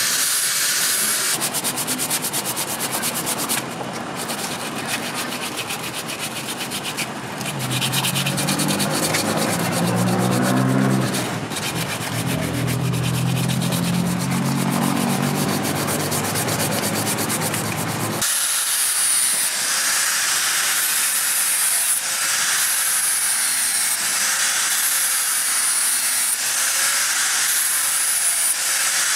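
Wooden knife handle being sanded by hand with sandpaper, a steady scratchy rubbing. About eighteen seconds in it switches abruptly to an angle grinder with an abrasive disc grinding the steel blade, its high whine dipping and recovering with each pass.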